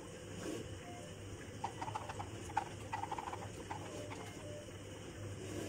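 A spoon stirring thin batter in a plastic measuring jug, knocking and scraping against the sides in a scatter of light, quick clicks.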